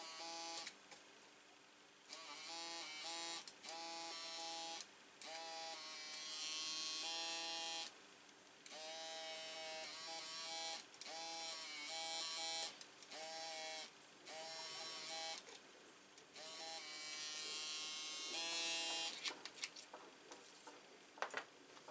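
Small handheld electric motor tool running in repeated bursts of one to two seconds, its whine sagging in pitch and recovering as it takes load. A few light clicks near the end.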